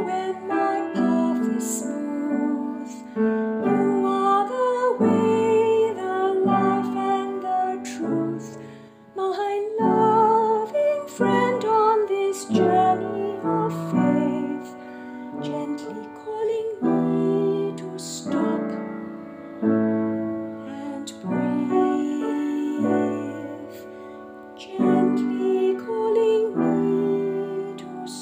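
Slow, gentle piano music: sustained chords with a wavering melody line above them.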